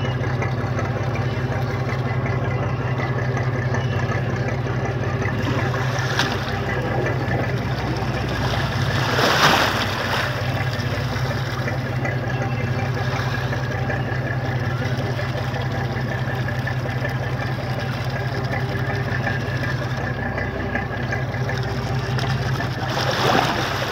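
Fishing boat's engine running steadily, a low even hum, with two brief whooshing noises, about nine seconds in and near the end.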